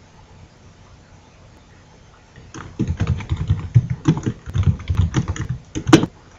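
Computer keyboard typing: a quick run of keystrokes starting about two and a half seconds in, ending with one louder key stroke near the end.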